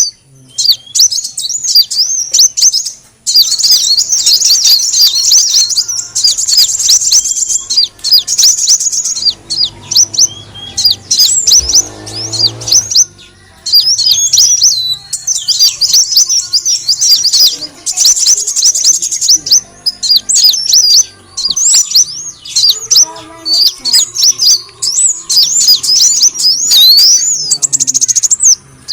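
Kolibri wulung sunbird singing a rapid run of high, sharp chirps and twittering trills, with denser trilled passages and brief pauses. It is a lure-call recording meant to draw in other birds of the species.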